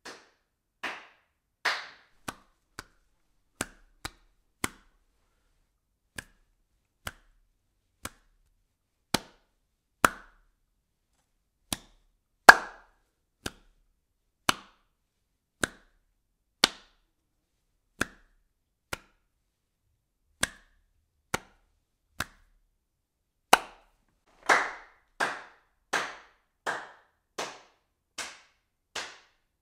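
Single hand claps, one at a time at uneven gaps of about a second, some short and sharp, others fuller with a brief ring after them. In the last few seconds the claps come quicker, nearly two a second.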